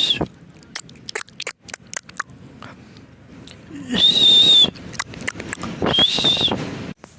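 Parrot giving short, harsh, high-pitched screeching calls, each about half a second long: one at the start, one about four seconds in, one about six seconds in. Between the first two, a scatter of small sharp clicks.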